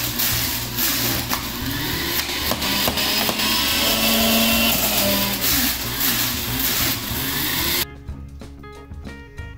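Electric juicer running as peeled cocoyams are pushed down its feed chute and grated, the motor cutting off suddenly about eight seconds in. Background music with a steady beat plays under it and carries on after.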